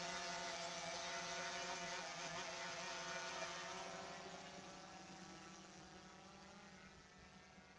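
DJI Phantom 3 Advanced quadcopter's propellers and motors humming with several steady tones as it climbs and flies away, fading steadily.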